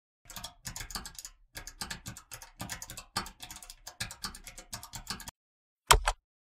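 Typing on a computer keyboard: a quick, uneven run of key clicks for about five seconds. Near the end comes a louder double key strike.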